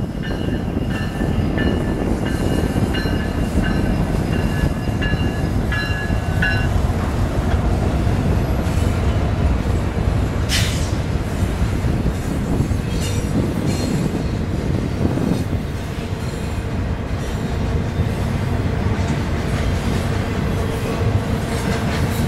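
Norfolk Southern double-stack intermodal freight train rolling past, a steady heavy rumble of wheels and cars. High-pitched squeals come and go over the first six seconds, and a short sharp screech sounds about ten seconds in.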